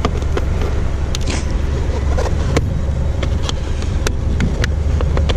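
Sharp plastic clicks and taps, several scattered ones, as a gloss black M3-style mirror cap is pressed and clipped onto a BMW 1 Series side mirror housing, over a steady low rumble.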